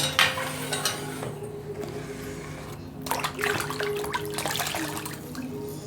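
Water running and splashing in several short spells, over a low steady hum.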